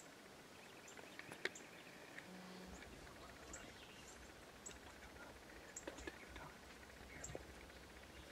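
Quiet outdoor ambience with scattered short, high bird chirps and a few faint clicks, the sharpest about a second and a half in. A faint low hum comes in about three seconds in.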